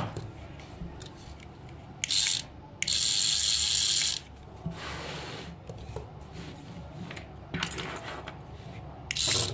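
Small electric motor and plastic gearbox of a remote-control praying mantis toy whirring in short bursts as it is switched on and off, the longest run about a second, near the middle.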